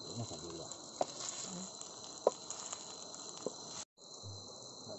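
Steady high-pitched chirring of crickets and other night insects, with a few sharp clacks of a spatula against a metal wok as fried rice is stirred. The sound drops out briefly near the end.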